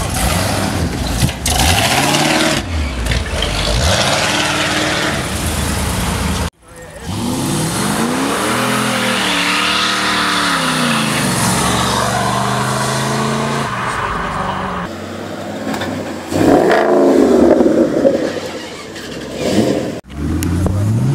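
American V8 engines revving and accelerating across several back-to-back clips, the engine pitch rising and falling in repeated blips. In the middle stretch a car is held at high revs with its rear tyres spinning in a burnout, and near the end another climbs steadily in pitch as it accelerates away.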